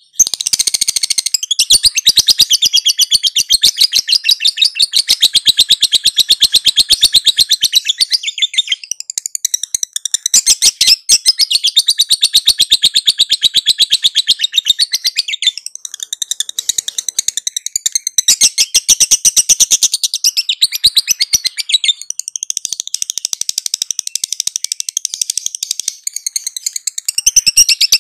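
Lovebird ngekek: a long, very rapid chattering trill of sharp, high chirps. It runs in sustained stretches of several seconds, broken by a few short pauses.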